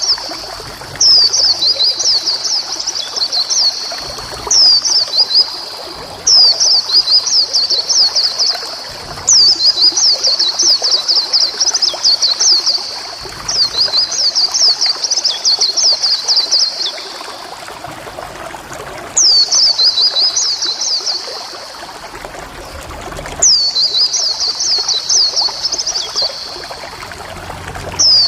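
White-eye (pleci) singing: bursts of rapid, high, falling notes lasting a few seconds each, repeated with short pauses between them.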